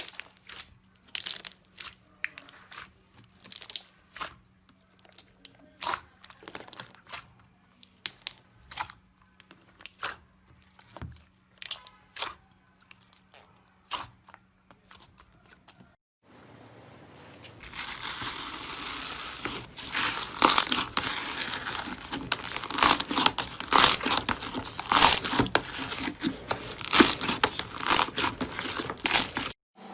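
Slime being pressed and pulled by hand, making scattered crackling clicks and pops. About halfway through the crackles become denser and louder.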